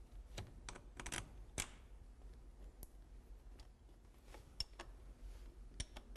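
Faint, scattered clicks and light taps of bolts and hand tools being handled while the lower radiator hose flange is bolted back onto the engine, over a low steady hum.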